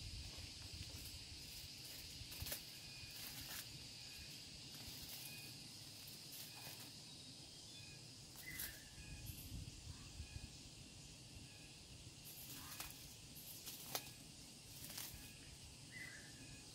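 Faint forest ambience: a steady high-pitched insect drone that fades about halfway through, broken by a few scattered knocks and scrapes from a wooden stick worked at a wild giant honeybee comb.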